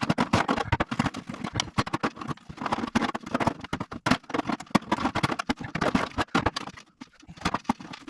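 A hammer prying and knocking at the lid of a damaged toolbox: a rapid, irregular run of knocks, clatters and scrapes.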